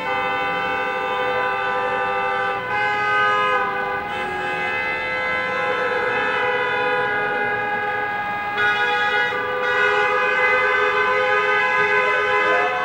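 Many car horns honking together in long held blasts from a slow convoy of cars, several pitches overlapping, the mix of tones changing every few seconds.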